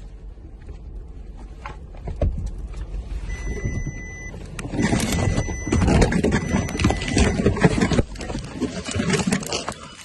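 Water sloshing and splashing inside a flooded car cabin, with knocks and rumbles as someone moves in the water-filled footwell. It grows much busier and louder about five seconds in. A brief steady electronic beep sounds a few seconds in.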